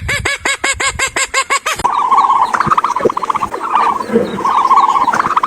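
Animal calls: a fast run of short, repeated, arched calls, about six a second, that breaks off about two seconds in, replaced by a different caller giving bursts of trilling at one steady pitch.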